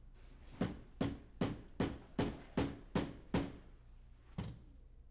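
Claw hammer striking a nail held against a lead water pipe, eight sharp blows at a steady pace of about two and a half a second, then a pause and one more blow near the end. The nail is being driven to punch a hole through the thick-walled lead pipe.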